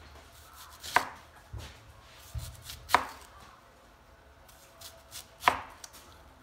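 Chef's knife slicing red onions into rings on a plastic cutting board: three sharp knocks of the blade striking the board, about two seconds apart, with softer thuds between.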